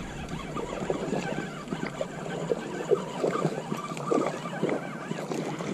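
A small hooked fish being reeled in on a spinning reel: irregular clicks and knocks from the reel and rod, with light splashing at the water's surface.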